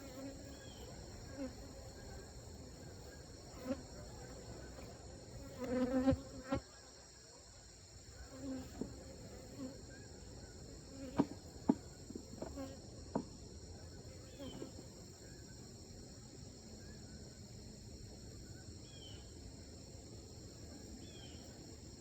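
Honeybees buzzing around an open hive, single bees passing close by now and then, one loudest about six seconds in. Under it runs a steady high-pitched insect chorus, and a few sharp knocks come about halfway through.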